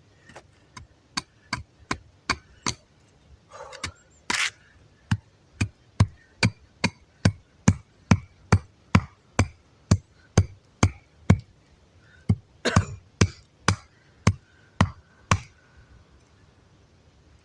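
Axe chopping wood: a long run of steady strikes, about two a second, with a short break about twelve seconds in, stopping near the end.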